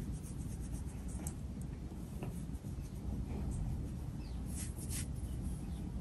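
Casablanca Delta II ceiling fan with a Samsung K55 motor on new bearings, running with five blades: a steady low rush of moving air with scattered faint ticks and scratchy clicks.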